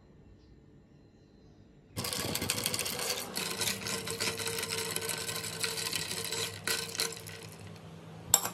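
Metal spoon stirring ice cubes in a tall tumbler of iced tea: a rapid clinking rattle that starts suddenly about two seconds in and lasts about five seconds, fading toward the end, then two sharp clicks near the end.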